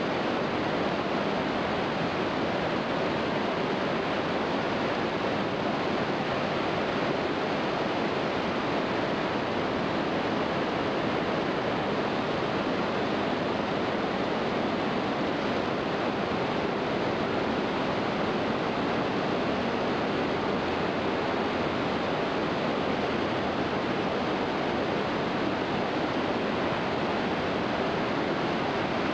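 Iguazu Falls' waterfalls: a steady, unbroken rush of heavy falling water, even in level throughout.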